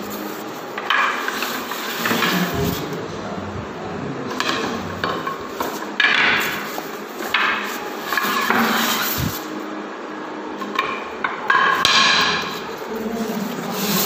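Wooden cricket stumps knocking together as they are handled and pulled out of their plastic carry bag, with a few sharp wooden knocks amid bursts of bag rustling.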